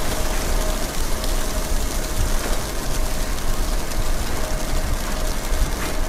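Wind and falling snow in a mountain snowstorm: a steady rush with uneven low rumbling from gusts on the microphone and fine pattering on top.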